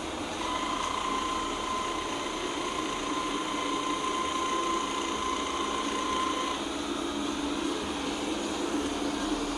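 Xiaomi Mijia robot vacuum's LDS laser distance sensor turret spinning with a faulty noise: a steady whine sets in about half a second in over a steady mechanical whirr, and stops about two-thirds of the way through while the whirr runs on.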